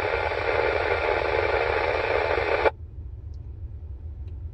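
Mobile two-way radio's speaker hissing with heavy static from a weak, noisy repeater signal, then cutting off abruptly under three seconds in. The signal is barely getting through, with the antenna on the back corner of the truck roof. A low rumble of the vehicle continues underneath.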